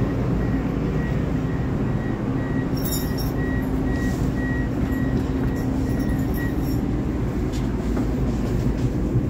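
Inside a V/Line VLocity diesel railcar: a steady low rumble and hum from the train. A high, rapid beeping repeats for the first six seconds or so and then stops.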